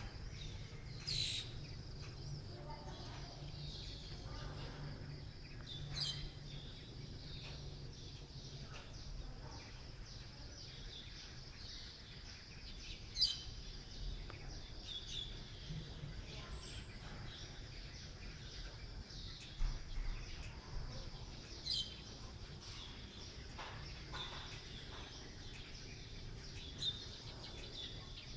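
Outdoor dawn ambience: birds give short, sharp chirps every few seconds over a steady low rumble and a faint steady high hiss.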